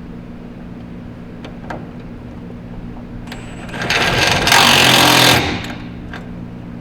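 A power tool runs in one burst of about a second and a half, driving a bolt on a steering shaft being fitted. A few light clicks and a steady low hum sit underneath it.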